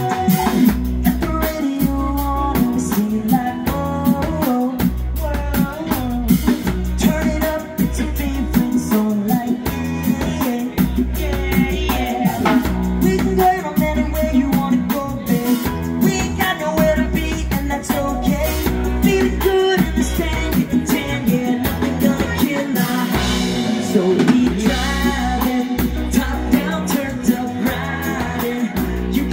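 Live band playing a song: a lead singer over electric guitars and a drum kit, with a steady beat.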